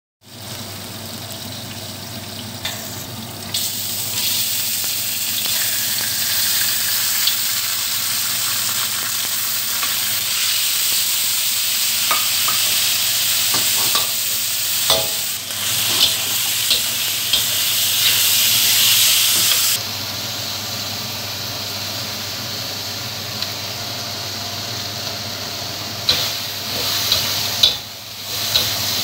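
Garlic and then frog legs sizzling in oil in a hot stainless steel wok, with a metal spatula now and then scraping and clinking against the pan. The sizzle grows louder a few seconds in and eases off about two-thirds of the way through.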